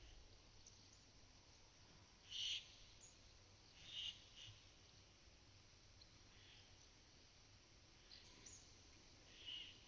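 Small birds giving short, separate calls, about five spread across a few seconds, over a near-silent pasture background.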